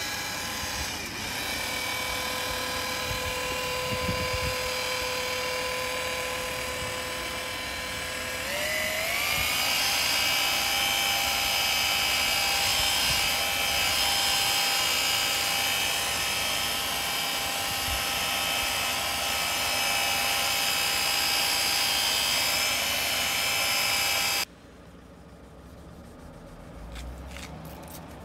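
Electric car polisher with a foam pad running against a car's paintwork, giving a steady whine. About eight seconds in its speed is turned up, so the pitch rises and it gets louder. It cuts off suddenly a few seconds before the end.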